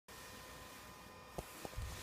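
Quiet room tone with two light clicks about a second and a half in, then a soft low bump near the end, typical of small parts being handled.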